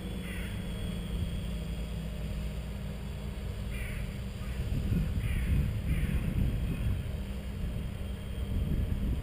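Breeze rumbling on the microphone, with a bird giving short calls: once near the start, then three more in the middle.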